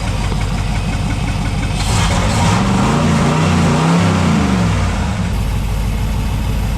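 Third-generation Chevrolet Camaro engine idling, revved up once about two seconds in and eased back down to idle by about five seconds.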